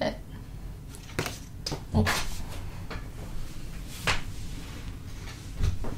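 Paper goods being handled: a handful of short rustles and light knocks, spread out, as a card ticket and a small soft-cover booklet are moved and picked up.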